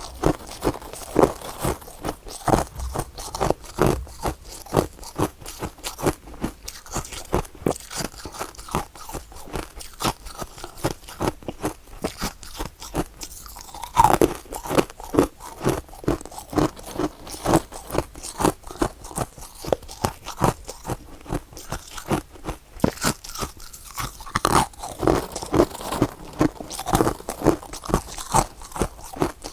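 Close-miked chewing of soft, powdery freezer frost, a rapid run of crisp crunches, several a second, with a louder bite about fourteen seconds in.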